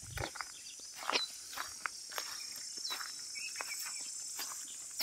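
A steady high buzz of insects, with a bird repeating a short, down-slurred call about every second and a half, and footsteps crunching on dry ground.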